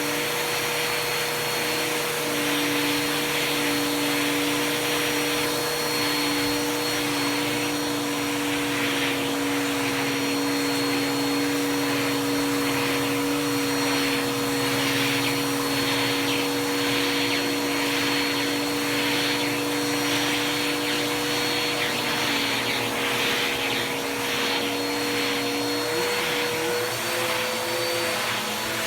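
Bissell vacuum cleaner running steadily with a high motor whine as its tool brush is worked over bed sheets, a hiss swelling with each stroke about once a second. Near the end the motor's pitch shifts as the suction load changes.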